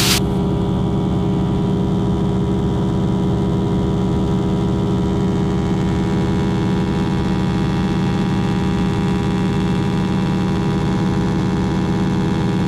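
North American AT-6 Texan's nine-cylinder Pratt & Whitney R-1340 Wasp radial engine and propeller running steadily in flight: an even drone that holds one pitch throughout.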